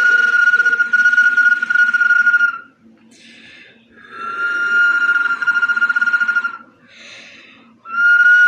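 Whistling bottle blown in long, steady, high whistling notes with a breathy hiss under the tone. One note ends about two and a half seconds in and the next runs from about four seconds to near seven, each gap holding a short breath, and a third note starts near the end.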